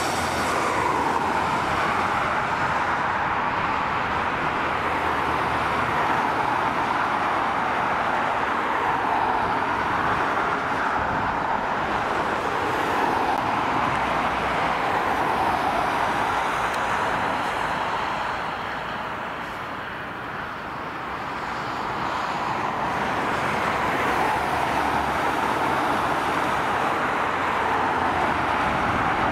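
Airbus A320-214's twin CFM56 turbofan engines at taxi power: a steady jet hiss and rumble that dips briefly about two-thirds of the way through.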